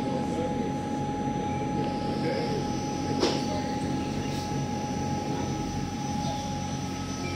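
Passenger river boat's engine running under way: a steady low drone with a steady whine over it, and a single sharp click about three seconds in.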